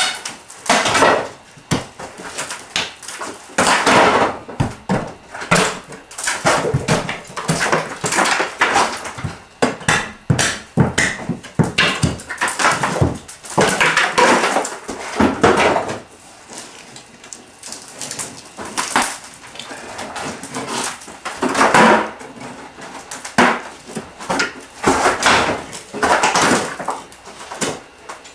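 Crowbar breaking out an old plaster-and-lath wall: irregular knocks and crunching as plaster breaks off and falls, with the thin wooden lath boards cracking, in bursts separated by short pauses.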